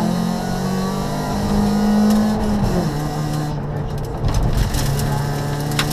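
Rally car engine heard from inside the cabin, pulling with the revs slowly rising, then dropping sharply about three seconds in and running steady. Sharp clicks and knocks come through in the second half.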